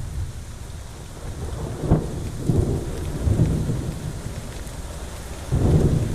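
Thunderstorm: a sharp thunder crack about two seconds in, then low rolling rumbles that swell twice, over steady heavy rain.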